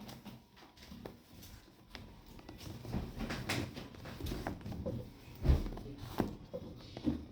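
A cardboard speaker box being worked open with a key: scattered scrapes, clicks and knocks of the key and box, with a heavier thump about five and a half seconds in.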